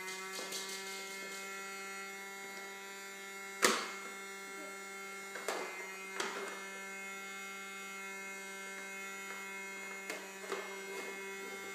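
Vacuum cleaner motor running with a steady electric hum. A sharp knock comes about three and a half seconds in, with a few softer bumps later.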